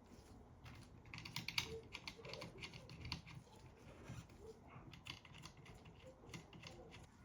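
Faint, irregular clicking of a computer keyboard being typed on, busiest in the first half.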